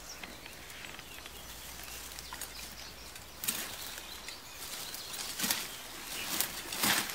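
Shrubs, ferns and leaves rustling as someone pushes through dense undergrowth, with several short swishes from about halfway through.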